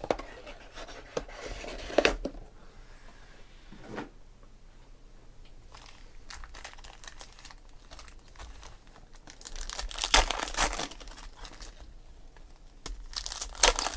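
Foil wrappers of Panini Select football card packs crinkling and tearing as the packs are ripped open by hand. The loudest bursts come about two seconds in, around ten seconds in and near the end, with quieter handling between.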